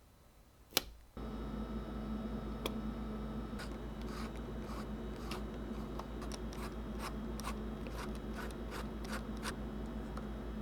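A sharp click, then a steady low electrical hum starts abruptly, over which come a series of irregular small clicks and scratches, like small parts being handled.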